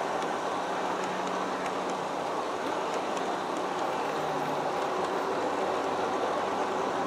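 Cars of a long G-scale model freight train rolling past on the track: a steady rolling rumble of wheels on rail with faint light clicks.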